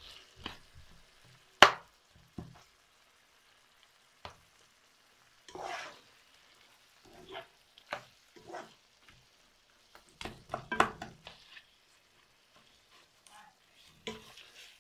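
Slotted spatula stirring meat into a thick pepper stew in a nonstick frying pan: irregular scraping, squelching strokes in short bouts, with one sharp knock about two seconds in that is the loudest sound.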